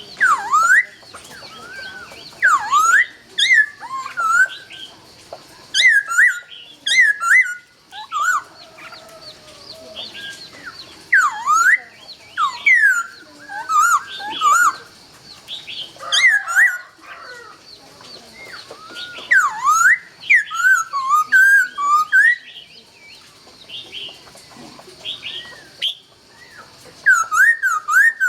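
Laughingthrush (khướu) singing loud, clear whistled phrases. The notes swoop down and back up, with quick high chirps mixed in, and come in bursts of a second or two separated by short pauses. The song is softer for a few seconds before a last loud phrase near the end.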